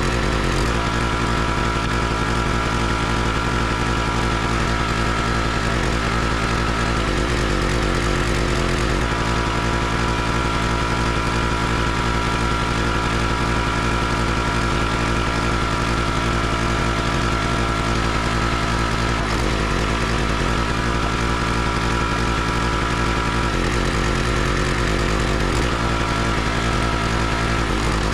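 Small gasoline engine of a CountryLine 32-ton hydraulic log splitter running steadily, its note shifting a few times as the ram is worked to split logs.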